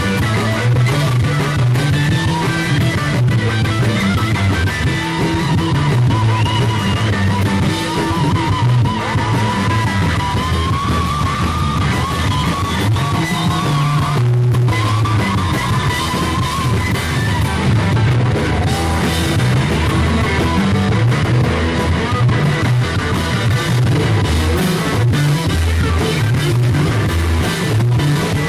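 Rock band playing live: electric bass, electric guitar and drum kit together, loud and continuous, with a wavering lead line in the middle range for several seconds near the middle.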